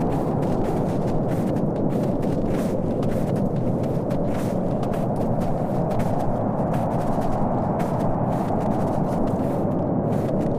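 Steady low rumbling noise, even throughout, with no speech or music.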